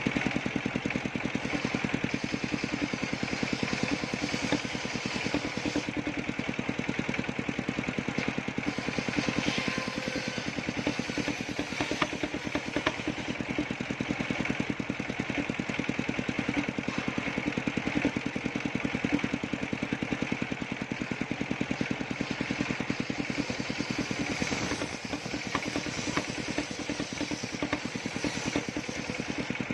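Engine of a circular-saw sawmill rig running steadily with a rapid, even firing beat.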